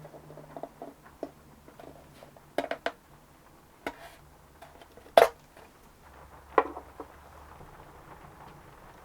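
Irregular clicks and knocks of small hand tools handled against wood at a workbench during violin bench work, with the two loudest knocks a little past five seconds and about a second and a half later.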